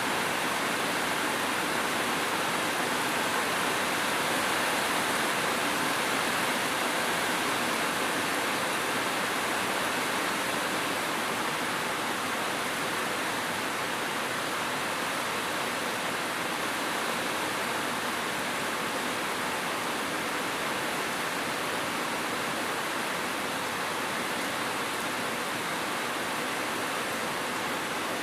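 Steady heavy rain, a dense, even hiss with no single drops standing out.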